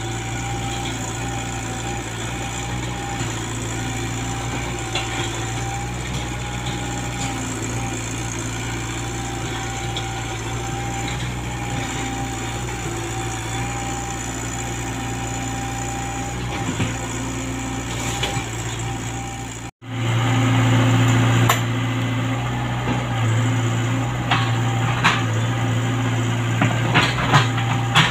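Komatsu PC75UU mini excavator's diesel engine running steadily under work, with a thin steady whine over its low hum. About two-thirds in, the engine sound jumps louder, and a few sharp knocks come near the end.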